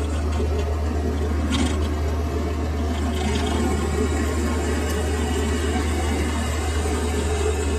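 Metal lathe running with its chuck spinning at speed: a steady low motor hum under a rumbling whoosh, with a brief hiss about one and a half seconds in and another near three seconds.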